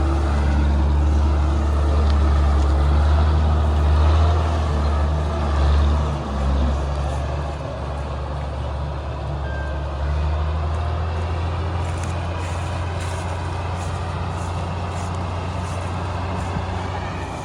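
Heavy diesel farm-machine engine running steadily with a deep drone. It eases a little about six to eight seconds in, then holds steady.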